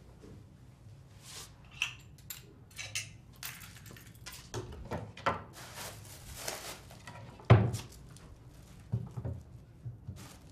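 Close handling noises: rustling of cloth and a plastic bag, with scattered clicks and knocks, and one louder thump about seven and a half seconds in.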